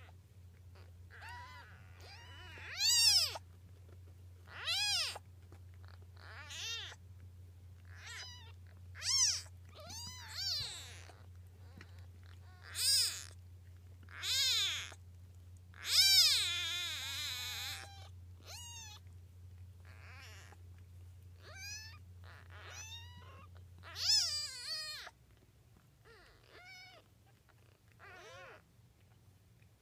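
Five-day-old kittens mewing: about twenty short, high-pitched cries that rise and fall, coming every second or two, with one longer wavering cry about halfway through. Under them runs a steady low hum that stops suddenly about three-quarters of the way in.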